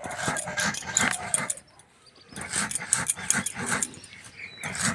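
Stone muller scraping and crushing puffed rice on a flat stone grinding slab (shil-nora), in rapid rasping back-and-forth strokes. The strokes pause for about half a second near the middle, then resume.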